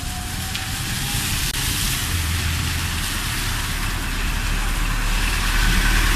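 Road traffic in the rain: a minibus engine running as it drives past close by, its tyres hissing through water on the wet road, over a steady rush of rain and traffic noise. The engine hum grows louder through the second half as the bus comes alongside.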